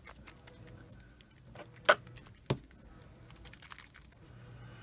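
Small plastic dropper bottles of model paint clicking and knocking together as one is picked out, with two sharp knocks about two seconds in and again half a second later.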